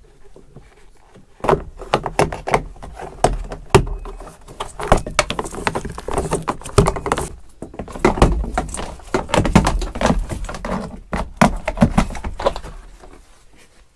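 Plastic door scuff plates of a Ford F-250 Super Duty being pried up with a trim removal tool: an irregular string of clicks and knocks as the snap-in clips pop loose and the plastic plate knocks against the door sill. It starts about a second and a half in and thins out near the end.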